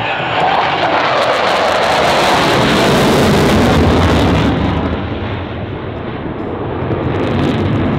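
Twin turbofan engines of an F/A-18F Super Hornet in a high-speed flypast: a loud jet rush with crackle that builds over the first few seconds while its pitch falls. It eases off about five seconds in and swells again near the end as the jet banks away.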